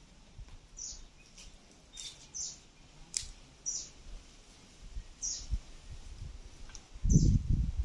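A bird repeating one short, high chirp that falls in pitch, about every second and a half. A few sharp clicks come in the first half, and a loud low rumble starts near the end.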